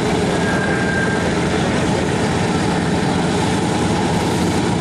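Boeing B-17G Flying Fortress taxiing, its four Wright R-1820 Cyclone radial engines running steadily at low power with a deep, even propeller drone.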